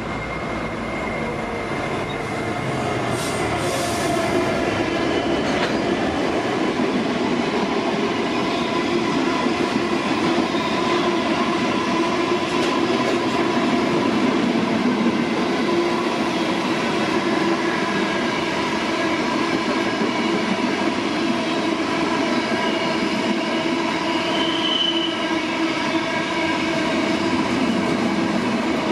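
Queensland Rail electric multiple-unit passenger train moving alongside the platform: a steady whine of several tones over wheel-on-rail rumble, growing a little louder over the first few seconds.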